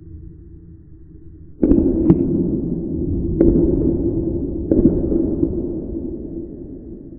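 A sudden loud bang about a second and a half in, with a long rumbling tail that slowly dies away, and sharp cracks on top of it: two close together, then two more about a second apart.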